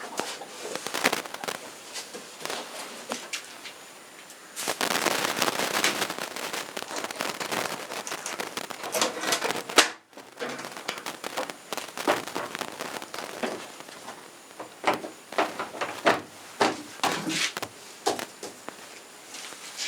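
Cleaning around a washing machine: rustling and scrubbing with many scattered clicks and light knocks. A denser stretch of scrubbing runs from about five to ten seconds in and cuts off abruptly.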